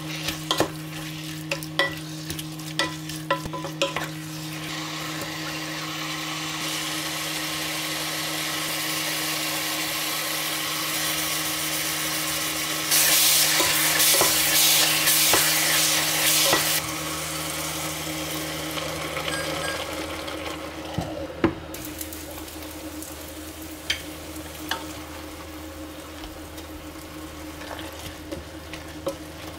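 Food frying in a pan: a sizzle that builds, grows loudest for about four seconds midway, then eases, with light clicks and taps of a cooking utensil against the pan.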